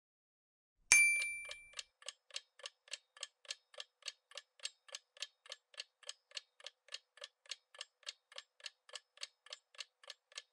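Quiz countdown timer sound effect: a chime about a second in, then steady clock-like ticking, about three ticks a second.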